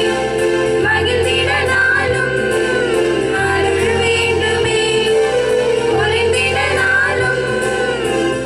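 A group of women singing a song together into microphones, amplified through a PA, with sustained, gliding melody lines. A low bass line moves beneath the voices, changing note about once a second.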